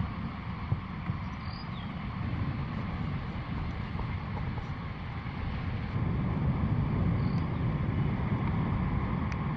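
Wind rumbling on the microphone, a steady low rumble that gets louder about six seconds in, with a few faint bird chirps.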